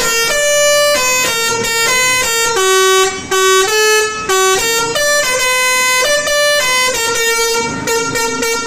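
Bus's musical 'basuri' air horn played from a small keyboard controller: a tune of short horn notes, changing pitch about two or three times a second.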